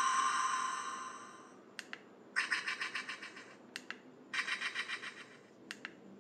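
Bootleg Ultraman Taro badge toy playing electronic sound effects from its small speaker. A ringing chime fades out over the first second and a half. Then come three quick double clicks, each followed by about a second of rapidly pulsing electronic tones.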